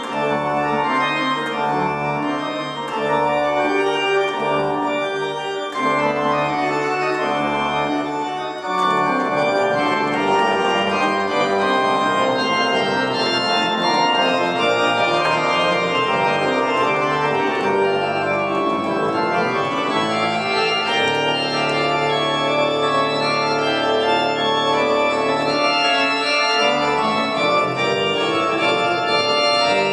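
Organ playing sustained chords over held bass notes, the harmony and bass changing about nine seconds in and again a little past the twenty-second mark.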